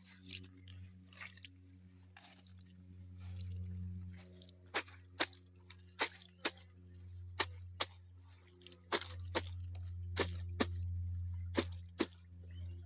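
Short, sharp wet clicks and splats at irregular intervals, mostly in the second half, as of wet cloth being worked by hand in water, over a steady low hum.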